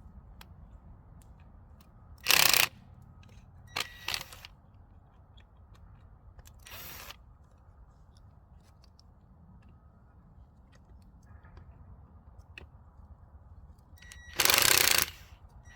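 Handling noise from working on a PVC water line and its insulation: two loud, short noisy bursts about half a second long, one a couple of seconds in and one near the end, with a few sharp clicks between, over a low steady rumble.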